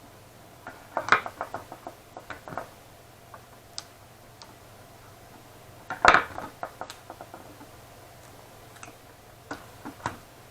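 Small hard objects being handled and set down while a graphics card is worked on: two short bursts of clattering clicks, about a second in and again near six seconds, with scattered single clicks between them.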